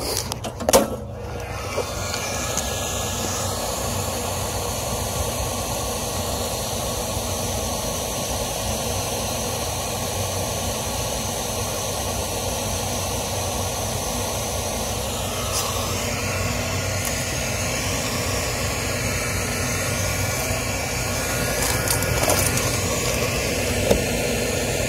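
Steady rushing noise with a faint hum, as of machinery or air running, growing a little louder near the end; one short click about a second in.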